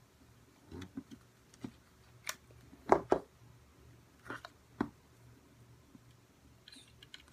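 Scattered small plastic clicks and knocks as a USB ADS-B receiver dongle is handled and plugged into a Raspberry Pi in a clear plastic case, the loudest knock about three seconds in.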